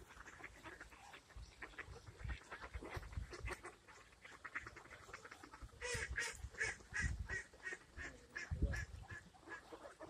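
Ducks quacking in runs of short calls, busiest and loudest about six seconds in. Two low thumps come near the end.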